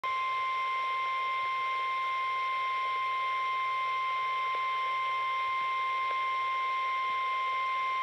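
Midland weather alert radio's speaker sounding the NOAA Weather Radio 1050 Hz warning alarm tone: one steady, unbroken high pitch, sent as part of the required weekly test of the alert system.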